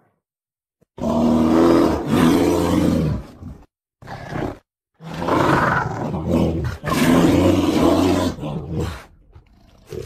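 Bear roaring: a series of long, loud calls with short gaps between them, starting about a second in and trailing off near the end.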